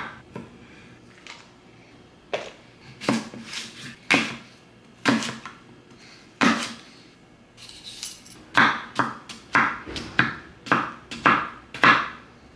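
Kitchen knife chopping fruit on a wooden cutting board: a few separate knocks of the blade on the board, then a quicker run of about three knocks a second over the last few seconds.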